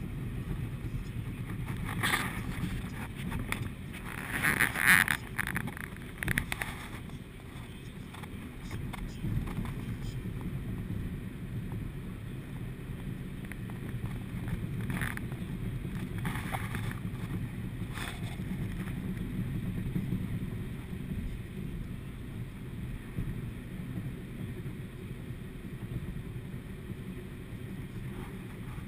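Steady low road and engine rumble of a car cruising on a freeway, heard from inside the cabin. A few brief louder noises break through: about 2 seconds in, around 5 to 6 seconds, and again around 15 to 18 seconds.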